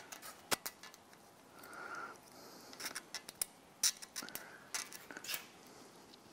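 Irregular light metallic clicks and scrapes of steel feeler gauge blades being handled and slid between a Holden 304 V8 main bearing cap and the block, gauging bearing crush.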